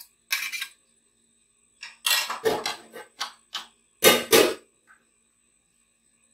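Spoon scraping and clattering against a bowl as raw potato paste is added to semolina batter, in short bursts. Two louder knocks come about four seconds in.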